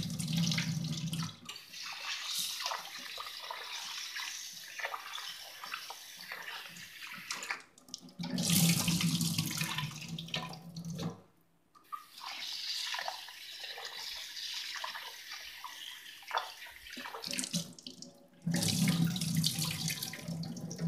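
Rice being washed by hand in a glass bowl in a stainless steel sink, with the tap running: water splashing and sloshing as the grains are swished about. Three times the rinse water is poured off into the sink in a louder, deeper splashing: at the start, about eight seconds in, and near the end.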